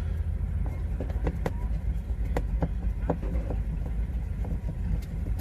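Flathead screwdriver backing out the long mounting screws of a GFCI outlet: irregular small metal clicks and ticks, over a steady low rumble.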